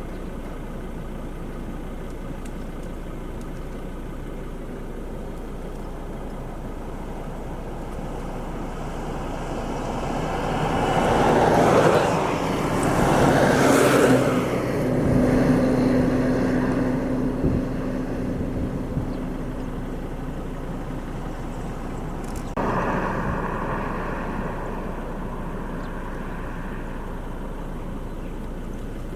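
A motor vehicle passes by on a road. It swells to its loudest near the middle, then its engine hum fades away. A second, quieter vehicle sound starts suddenly about three-quarters of the way through, over steady background noise.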